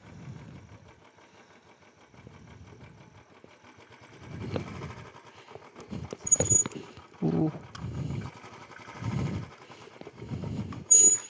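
Royal Enfield 350 motorcycle picking its way over a rocky off-road trail: low, uneven engine pulses come and go as it climbs, with knocks and rattles over the rocks. Two short high squeals come about six seconds in and near the end.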